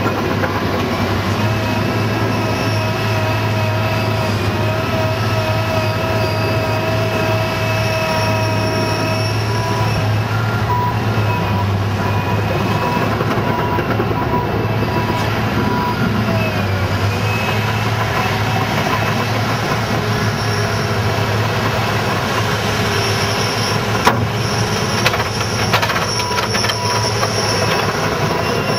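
Caterpillar 963C track loader working under load: its diesel engine runs steadily while wavering whines and squeals from the machine's hydraulics and steel tracks sound over it as it digs into the topsoil and carries the bucket. Near the end a few sharp metallic clanks sound as the bucket is raised over the truck.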